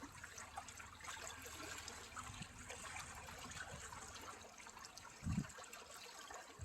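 Water trickling and lapping, likely the bay's water washing at the shore, with a brief low thump about five seconds in.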